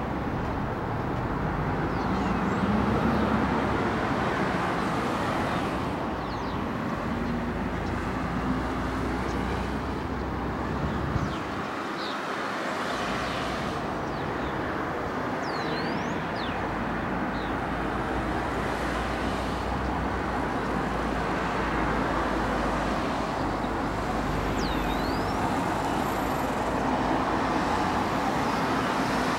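Road traffic: cars driving round a bend one after another, engine hum and tyre noise in a steady wash that swells as each car passes close, most of all near the end.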